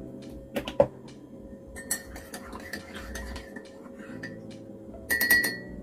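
Metal spoon stirring honey into coffee in a ceramic mug, ticking lightly against the inside. Near the end comes a quick run of clinks that leave a ringing tone. Two sharp knocks sound a little under a second in.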